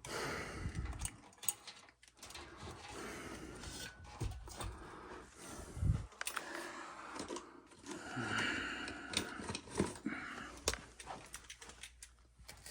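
Irregular clicks, knocks and rattles of tools and metal parts being handled, with some rustling and no motor running.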